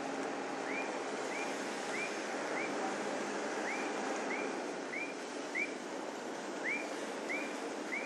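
A short high chirp that rises and then falls, repeated in runs of three or four about half a second apart, over a steady outdoor background hiss.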